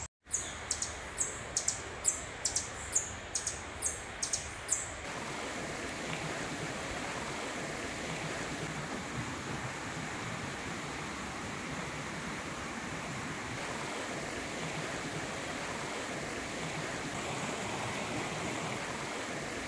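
A bird calls a quick series of short, high chirps, about two or three a second, which stop about five seconds in. Then comes the steady rush of a flowing stream.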